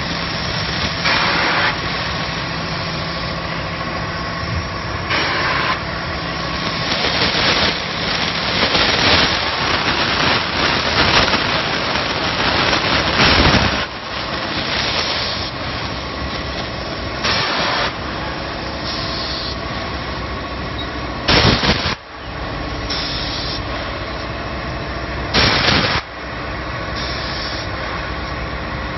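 Wafer production line machinery running steadily, with repeated bursts of hissing noise about a second long every few seconds, the loudest a little past the middle.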